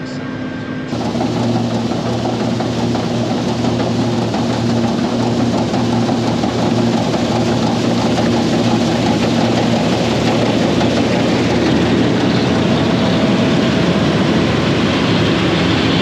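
Combine harvester running steadily while cutting and threshing oats: a steady engine hum under a broad mechanical rush. It gets suddenly louder about a second in and then holds.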